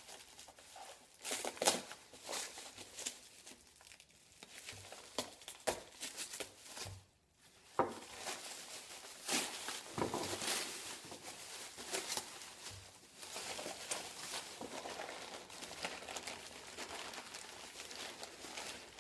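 Packaging being unwrapped by hand from a machined CNC motor mount: irregular rustling and crinkling with short tearing crackles, pausing briefly about seven seconds in.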